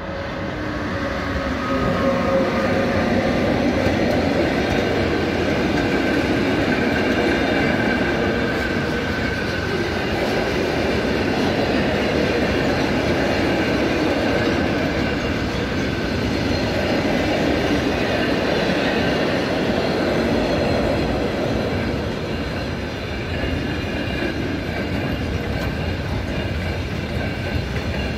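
Freight train passing close by: an ÖBB Taurus electric locomotive hauling a long train of enclosed double-deck car-transport wagons. Its loud rolling rumble rises over the first couple of seconds and then holds steady, with faint steady high tones above it.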